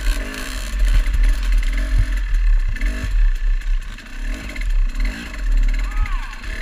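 Dirt bike engine revving up and down over and over while riding across rough ground, with a heavy low rumble and several knocks and clatters from the bike bouncing.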